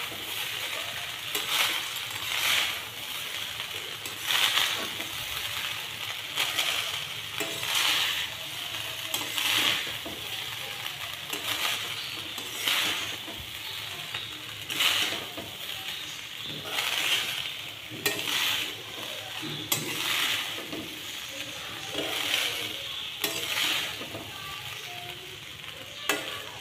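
Metal spatula scraping and turning par-boiled basmati rice in a kadai of hot oil, ghee and cumin, mixing it through, with a steady sizzle underneath. The scrapes come about once every second or so.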